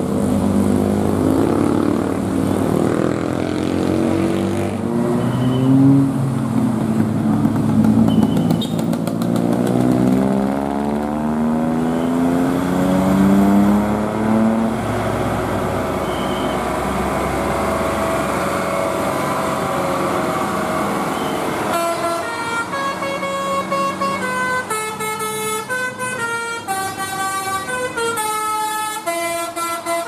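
Heavy bus engines labouring and revving up a winding hill, their pitch rising and falling, with motorcycles among them. From about two-thirds of the way in, a bus's multi-tone telolet horn plays a quick tune of stepped notes.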